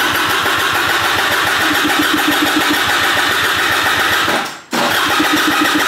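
Piaggio SKR 125 scooter's electric starter cranking the engine with an even pulsing rhythm, in two goes with a short break about four and a half seconds in. The engine does not catch: the scooter won't start.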